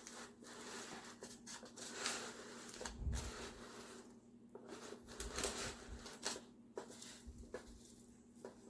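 Handling noise from a hair crimper being worked by hand: irregular rustling with scattered small plastic clicks and knocks as its stiff clamp is tried open, over a faint steady hum.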